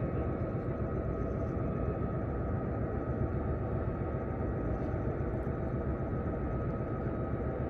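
Steady low rumble of harbourside background noise, with a faint steady high-pitched tone above it.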